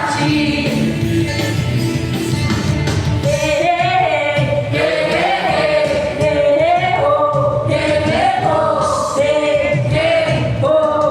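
A song: singing voices with wavering, held notes over instrumental accompaniment.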